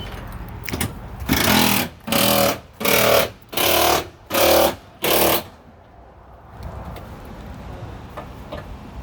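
Pneumatic impact wrench fired in six short bursts, each about half a second, tightening front suspension bolts.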